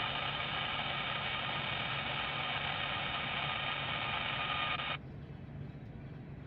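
A burst of radio static: about five seconds of even hiss that switches on and cuts off abruptly, as when a scanner or two-way radio opens with no voice on it.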